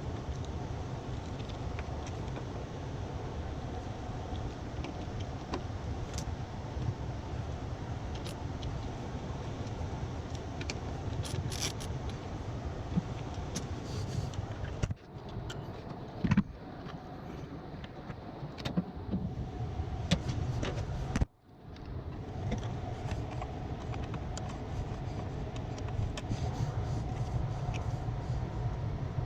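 Steady low mechanical hum with scattered light metallic clinks and knocks of tools and parts being handled, and a single louder click about 16 seconds in.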